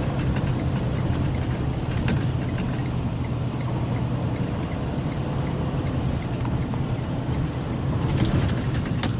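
Heavy-duty truck's diesel engine running steadily while the truck cruises in ninth gear, with a few light clicks.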